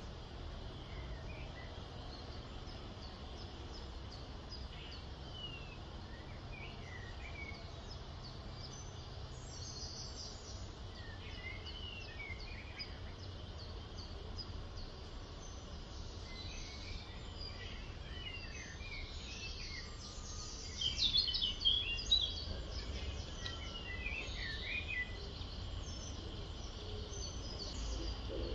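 Birds chirping and calling, short sweeping notes scattered throughout over a steady low rumble of background noise, with a cluster of louder chirps a little past two-thirds of the way through.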